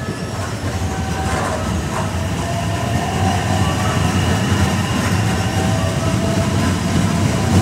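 Limited express electric train pulling slowly into a station to stop, its wheels and running gear rumbling. The rumble grows slowly louder as it nears, with faint steady whining tones above it.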